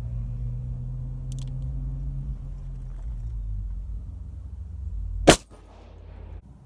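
A single Smith & Wesson revolver shot, a sharp loud crack about five seconds in, over a steady low hum that fades away shortly before it.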